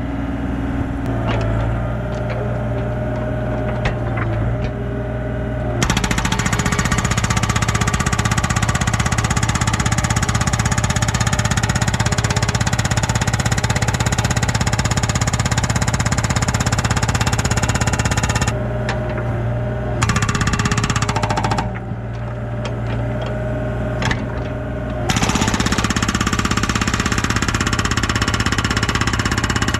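Hydraulic breaker hammer on a Yanmar B37 mini excavator pounding rock in rapid blows: it starts about six seconds in, stops briefly twice, then resumes near the end. The excavator's diesel engine runs throughout.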